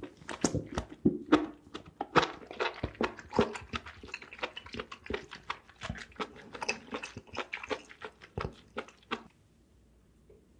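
Close-miked chewing of food: a dense run of wet mouth clicks and smacks that stops about nine seconds in.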